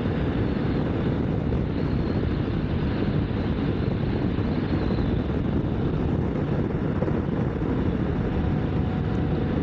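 Motorcycle riding at a steady speed: continuous engine drone mixed with wind rush over the microphone.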